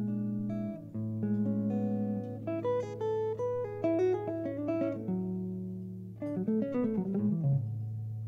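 Archtop jazz guitar playing a solo fill between sung lines: held chords, then quick runs of single notes, and a falling run near the end, over low held notes.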